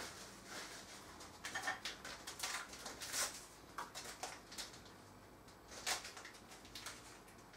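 Small paper sachet of baking powder being opened and handled: a scatter of short crinkling rustles with a few light ticks.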